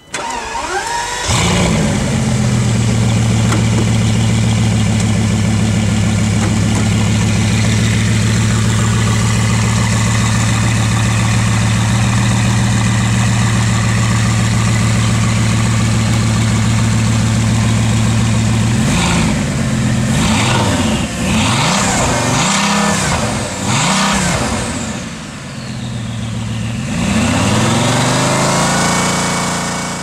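Bugatti Veyron 16.4's 8-litre turbocharged W16 engine starting about a second in and settling into a steady idle. From about two-thirds of the way through it is blipped several times in quick succession, then revved once for longer and let fall back near the end.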